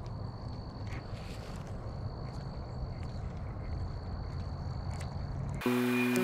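An insect holding one steady high-pitched note over a low rumbling background, with a few faint clicks. The note stops about five seconds in, and music cuts in near the end.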